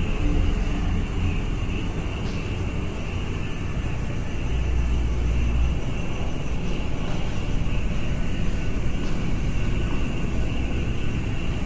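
Low rumble of road traffic passing on a nearby road, swelling about halfway through, over a steady high-pitched drone.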